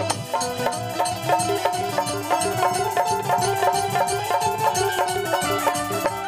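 Instrumental passage of Bhojpuri folk-style stage music: a stepped melody over a quick, even percussion beat.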